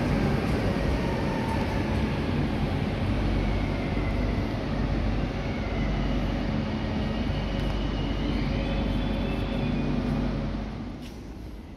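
Renfe Cercanías Civia electric train running along the platform as it arrives, a steady rumble of wheels and running gear with a motor whine that shifts in pitch, dying away near the end as it slows to a stop.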